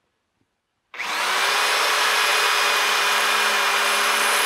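Handheld electric drill starting suddenly about a second in and running loud and steady at full speed, drilling a hole in the tractor canopy for a ground screw.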